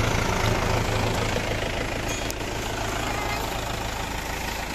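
Mahindra 475 DI XP Plus tractor's four-cylinder diesel engine idling steadily while the tractor stands still.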